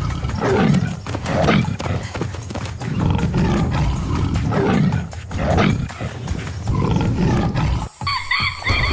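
A large animal growling and roaring over and over, deep and rough, about once a second. Near the end it breaks off suddenly and high, rapidly repeated chirping calls take over.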